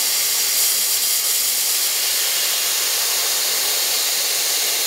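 Compressed air hissing steadily out of the open slide check valve on a Ninja HPA bottle's ASA, as the regulated air is bled off to empty the bottle.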